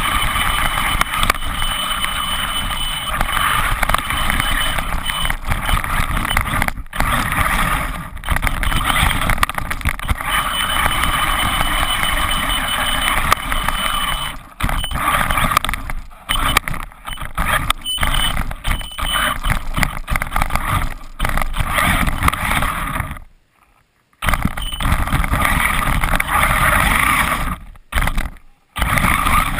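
Traxxas E-Revo electric RC monster truck driving through snow: its motor running and its tyres churning and spraying snow. The sound breaks off briefly several times, with about a second of near quiet roughly two-thirds of the way through.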